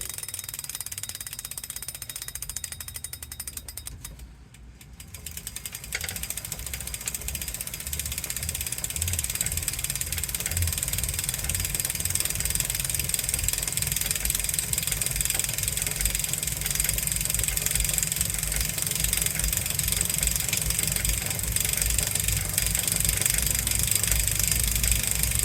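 Wahoo Kickr Core smart bike trainer making an unwanted clicking noise: rapid ratchet-like clicking for the first few seconds, then from about six seconds in the flywheel spins up into a steady whir that grows slowly louder, with a repeating low thump under it.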